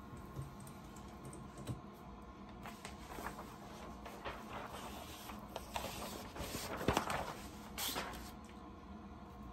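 Sheets of brown kraft paper and a cotton T-shirt being handled: irregular rustling and crinkling with small clicks, loudest about seven seconds in.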